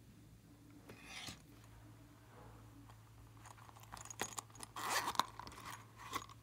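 Small plastic makeup containers handled by hand: a brief scrape about a second in, then a run of plastic clicks, taps and scrapes, loudest about five seconds in.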